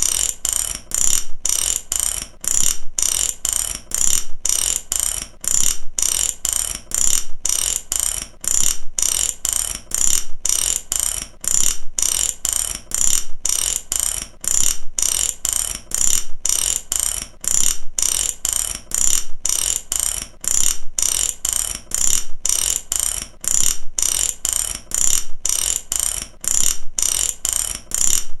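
Metal ratchet clicking over and over, about two sharp clicks a second with a bright metallic ring, in a steady rhythm.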